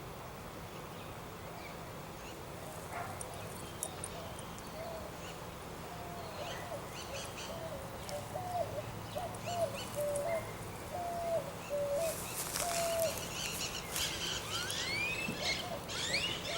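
Small dog whining in a string of short, bending notes, about two a second. Birds chirp higher up near the end.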